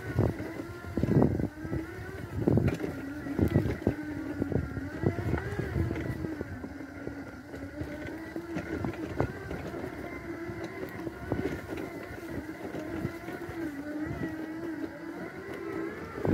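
Magic Mobility Extreme X8 power wheelchair driving over a rough grass track: its electric drive motors hum steadily with a slightly wavering pitch. Knocks and rattles from bumps in the ground come through over the first few seconds.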